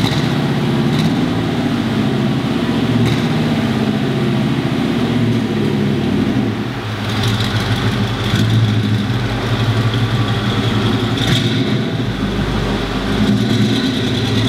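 Chevrolet C10 pickup's engine running just after being started, idling with its pitch rising and falling a little a few times.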